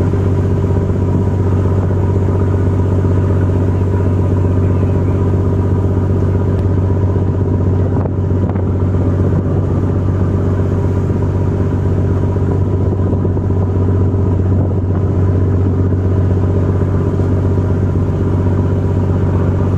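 A boat's engine running steadily at constant speed, a loud, even, low drone.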